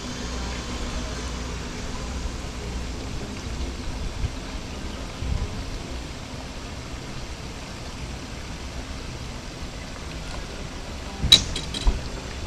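Steady outdoor hiss with a distant motorboat's hum fading away in the first few seconds. About 11 seconds in comes a sharp knock with a short ringing clatter, then a lighter knock, from footsteps and gear on the bass boat's deck.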